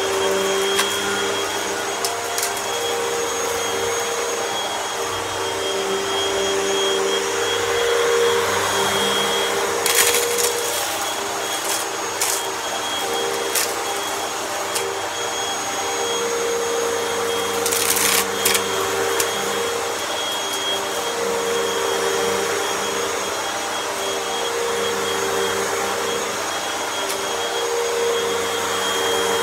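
Vacuum cleaner running steadily with a high whine over its motor drone, sucking up debris with a light crunch of small clicks and crackles, louder twice, about a third and two thirds of the way through.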